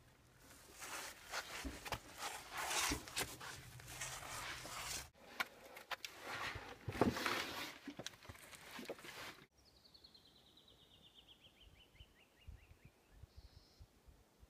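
Scrambling down sandstone: scraping, rustling and scuffing of shoes and hands on rock and gritty sand, with knocks from handling the camera, cut off abruptly twice. After that it is quieter, and a bird sings a run of about twenty quick whistled notes falling steadily in pitch.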